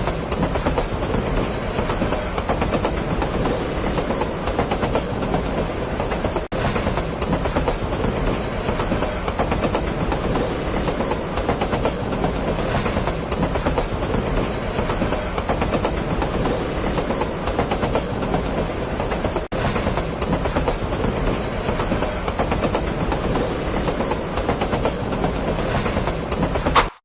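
Nankai Rapi:t electric express train running on rails: a steady rumble with rail clickety-clack, broken by two very brief dropouts.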